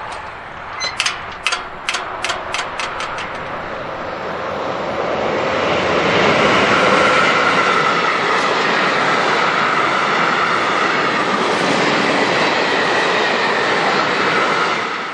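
A train passing: a quick run of sharp wheel clicks over rail joints, then a loud, steady rushing noise that swells and holds before cutting off abruptly at the end.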